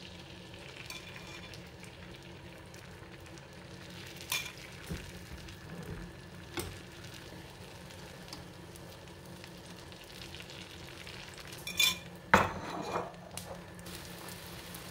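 Beaten eggs frying with a faint, steady sizzle in a lightly oiled crepe pan, while a fork scrapes and knocks against the pan a few times; the loudest knock comes near the end.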